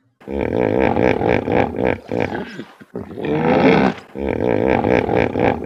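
Hippopotamus calling: three long, rough, deep calls in quick succession, the middle one shorter.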